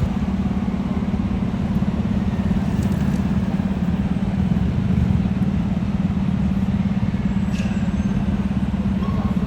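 Heavy fire truck's diesel engine running with a steady low drone, under street traffic noise.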